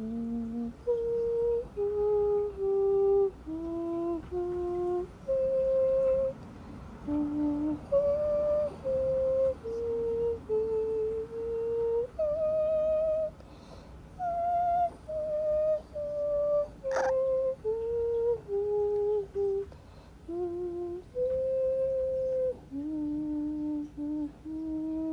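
A person humming a slow lullaby melody in a small room, one held note after another stepping up and down in pitch, a few with a slight wobble. A single sharp click sounds about two-thirds of the way through.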